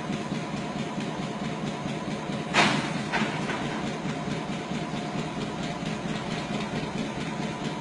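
Railway locomotive running steadily, with a sharp knock about two and a half seconds in and a fainter one half a second later.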